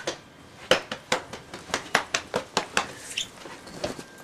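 A quick, irregular run of light clicks and taps, about three or four a second.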